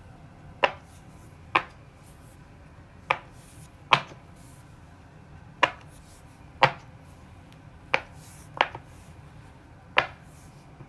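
Bubbles of a silicone Pop It fidget toy being pressed through one at a time, each a short sharp pop, about nine in all at uneven intervals.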